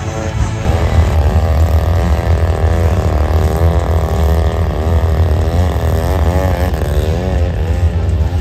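Engine of a large radio-controlled airplane in flight, its pitch wavering up and down repeatedly over a steady low rumble.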